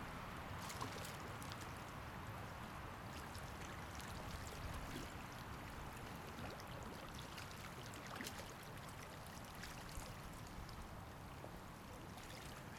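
Steady rush of a flowing river, with a low rumble of wind buffeting the microphone and scattered faint ticks of small splashes.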